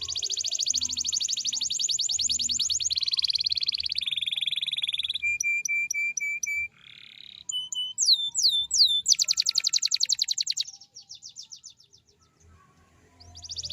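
Domestic canary singing a long, varied song of rapid rolled trills that change phrase every couple of seconds. The song moves through fast trills, a run of evenly repeated notes, a few down-slurred whistles, then more trills that fade out; a new roll starts near the end.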